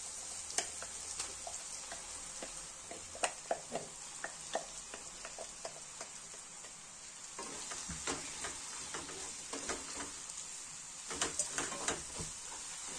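Soya chunks being stirred into sizzling masala in a pan: a cooking spoon scrapes and taps against the pan over a steady frying hiss. The taps and scrapes come thicker in the second half.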